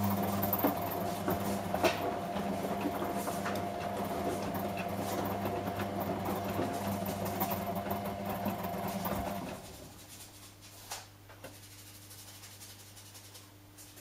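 Two front-loading washing machines, a Samsung Eco Bubble and a Whirlpool, running a fast wash: a steady motor hum with laundry tumbling in the drums. About two-thirds of the way in the noise drops sharply, leaving a quieter hum with a few clicks.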